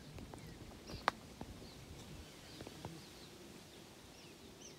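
Faint birds chirping: scattered short, quick chirps and calls. A single sharp click about a second in, with a few softer ticks near the three-second mark.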